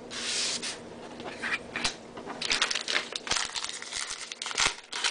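A trading-card pack wrapper torn open with a short rip at the start, then quick crackling and crinkling as the wrapper and cards are handled.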